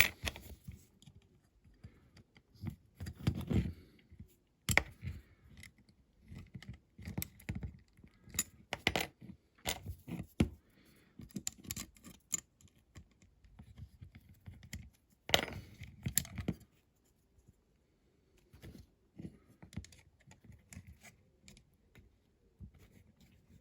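Irregular small clicks, taps and rattles of tiny diecast model parts and hand tools being handled on a workbench, in short clusters with a pause of a couple of seconds past the middle.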